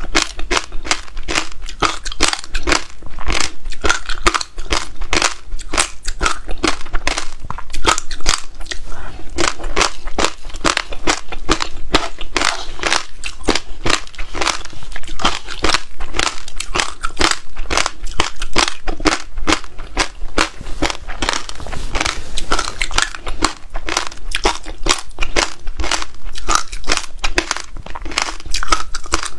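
Close-miked crunching and chewing of frozen passion fruit pulp mixed with buckwheat groats and seeds: a dense run of crisp crackling crunches with no pauses.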